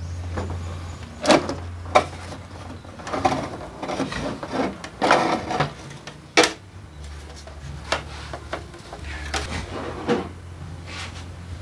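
Plastic front cowl of a Suzuki Address 125 scooter being worked loose and pulled away by hand: irregular clicks, knocks and scrapes of plastic panel, a few sharp ones louder than the rest, over a steady low hum.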